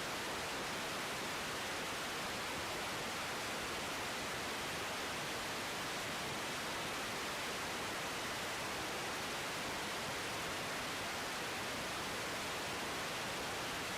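Steady, even hiss of radio static on the air traffic control feed between transmissions, unchanging throughout.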